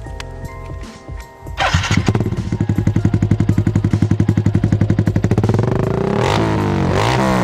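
Yamaha Sniper single-cylinder motorcycle engine breathing through an aftermarket muffler: it starts about one and a half seconds in and idles with an even, quickening pulse, then is revved up and down in short blips near the end.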